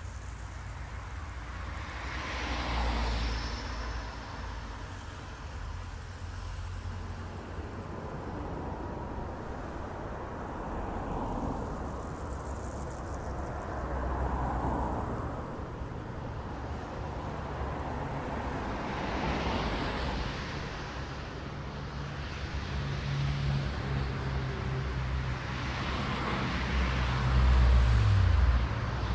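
Road traffic: cars passing one after another, each one a swell of engine and tyre noise that rises and fades, over a steady low rumble. The loudest pass, with a deeper rumble, comes near the end.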